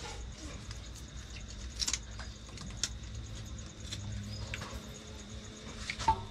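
A few light, scattered clicks and taps from hands and a utensil preparing scallion, over a low steady hum.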